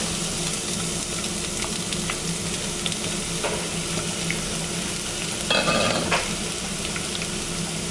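Chopped onion frying in hot oil in a frying pan with cumin seeds, mustard seeds and curry leaves: a steady sizzle with a few small pops, just after the onion goes into the tempering oil. A brief louder sound cuts in about five and a half seconds in.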